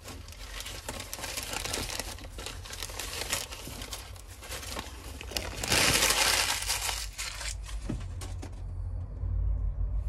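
Paper and plastic packing wrap crinkling and rustling as a small potted cactus is unwrapped by hand, loudest just past the middle.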